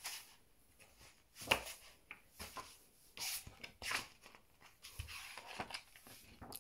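Glossy paper pages of a hardback children's annual being turned by hand, rustling quietly several times at uneven intervals.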